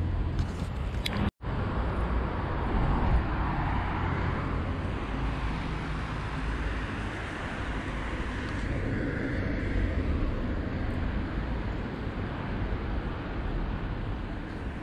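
Road traffic on a town street: cars passing by, two of them swelling and fading, over a steady low rumble. The sound drops out for an instant just over a second in.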